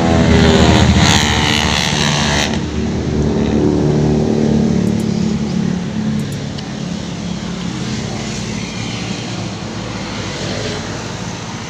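Engine noise from a motor vehicle passing close by, loudest in the first two or three seconds, then falling in pitch and fading into a steady traffic rumble.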